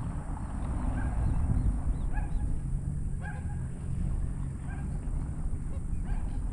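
A bird calling over and over, short arched cries roughly once a second at uneven intervals, over a steady low rumble.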